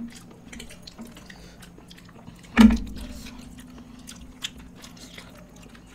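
People chewing food with small wet mouth clicks and smacks. A single thump about two and a half seconds in, followed by a low steady hum for a couple of seconds.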